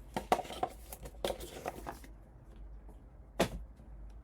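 Trading cards being handled: two rustling slides in the first two seconds, then a single sharp tap about three and a half seconds in.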